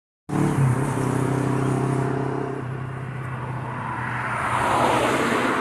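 Trains 108 and 103 running together: a steady low droning tone with overtones for the first two and a half seconds, then a broad rushing rumble that swells near the end.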